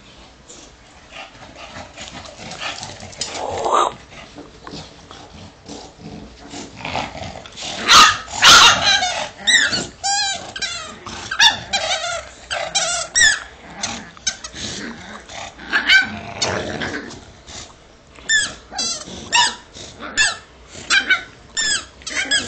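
A bulldog and a small dog playing tug-of-war over a cloth toy: growling, then from about a third of the way in many short, high-pitched yaps and barks in quick runs.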